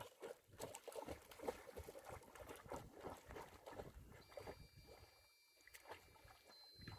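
Faint splashing and lapping of pool water as a Portuguese water dog paddles, dying down for a moment about five seconds in.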